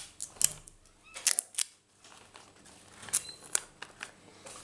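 Folded paper pieces being handled and pressed together: a few short crinkles and taps of stiff paper, with quiet gaps between them.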